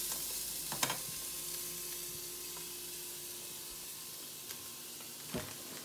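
Grass-fed beef bone sizzling as it browns in beef tallow in an Instant Pot's inner pot on sauté, a steady hiss growing slowly fainter, with a light click about a second in.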